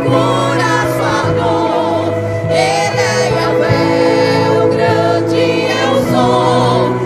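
Women's vocal group singing a gospel praise song in Portuguese with vibrato, over sustained bass notes of an instrumental accompaniment.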